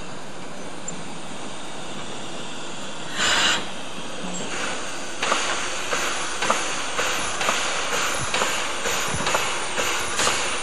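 Harz narrow-gauge steam tank locomotive at a station: a short loud burst of steam hiss about three seconds in, then a steady rhythmic series of beats roughly twice a second as it stands at the platform.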